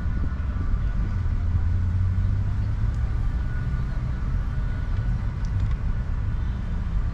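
Steady low rumble of outdoor background noise, with faint steady high tones above it.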